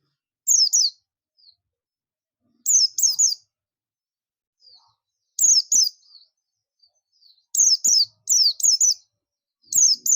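White-eye (Zosterops, the 'pleci buxtoni' of Indonesian bird keepers) giving its loud 'ngalas' call. The call comes as short bursts of two to four sharp, high, falling notes, repeated about every two seconds.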